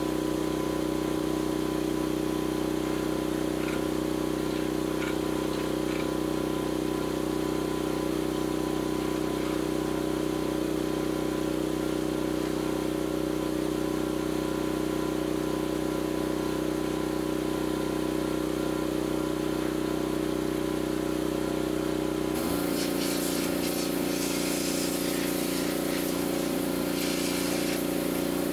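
Pressure washer (jet wash) motor running steadily. About 22 seconds in its tone drops and a harsh hiss of spraying water joins it as the jet is turned on.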